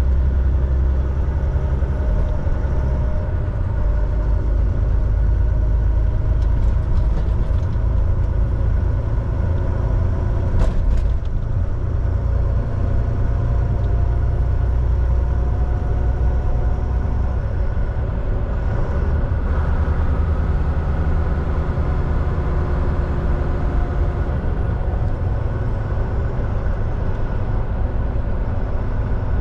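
Semi truck running at highway speed: a steady low engine and road rumble, with a short knock about eleven seconds in.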